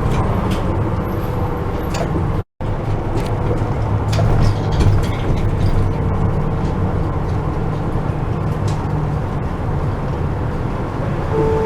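Interior noise of a city bus on the move: a steady low engine and road rumble with scattered small rattles and clicks. The sound cuts out completely for a moment a little over two seconds in, and a steady tone begins near the end.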